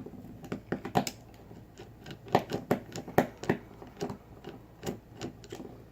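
Irregular sharp clicks and knocks of metal parts being worked loose as the core of an old American Lock 5200 padlock is forced out of its body, a dozen or more strikes spread unevenly.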